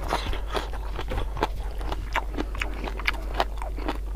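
A person chewing a mouthful of raw leafy vegetables with sambal close to the microphone: many quick, irregular wet clicks and crunches.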